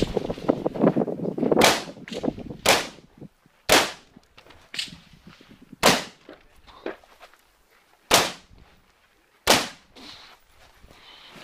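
Rifle shots fired one at a time, roughly a second apart, each a sharp crack with a short ringing tail, some fainter than others.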